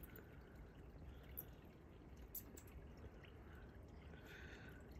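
Near silence: faint background hiss with a few faint ticks.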